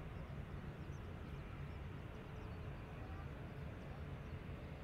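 Steady low rumble of airport ambience, with no aircraft passing close. A few faint, short high chirps sound over it.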